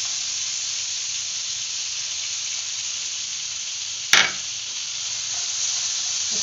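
Chopped garlic sizzling in melted butter and oil in a nonstick frying pan, a steady high hiss, with one sharp knock about four seconds in; a wooden spatula stirs the garlic near the end.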